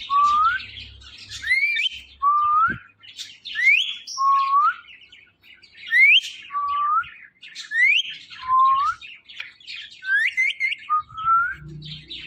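A ringneck parrot giving a repeated two-note whistled call, a high rising whistle then a lower rising note, about every two seconds, with scratchy chirps in between.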